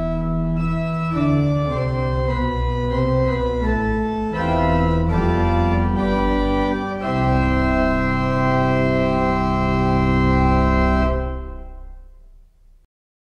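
Church organ playing sustained chords over deep bass notes. It closes on a long held chord from about seven seconds in, which fades away near the end.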